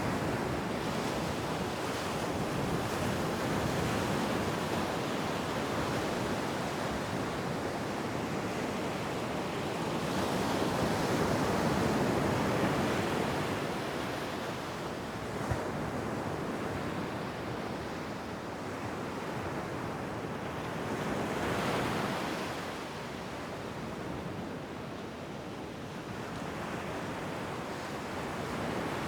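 Ocean waves breaking and washing on a beach, a continuous surf noise that swells and ebbs every several seconds, with some wind on the microphone. A single faint click about halfway through.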